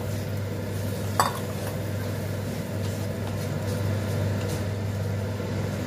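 Kitchen utensil working a kadai of potato and pointed gourd in spiced masala, with one sharp clink against the pan about a second in, over a steady low hum.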